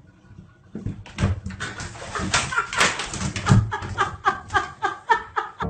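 An animal calling over and over in short cries that fall in pitch, several a second, coming faster toward the end.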